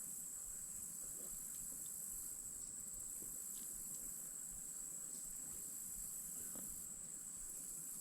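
Steady, high-pitched chorus of insects calling without a break, with a few faint ticks.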